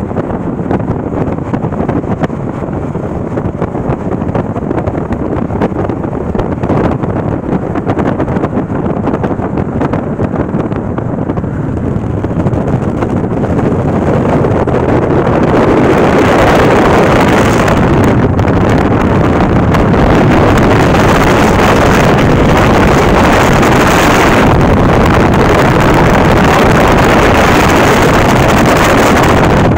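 Wind and road noise of a car travelling at highway speed, a steady rush that grows louder and hissier about halfway through.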